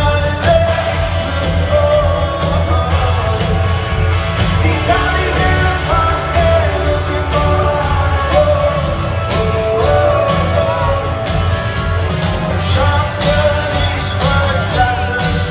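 Live rock band playing, with drums, bass, guitars and singing; loud and steady throughout.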